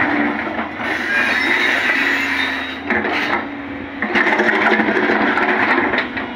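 JCB tracked excavator running, its engine and hydraulics working with a loud, noisy mechanical rattle and hiss, easing off briefly about three seconds in.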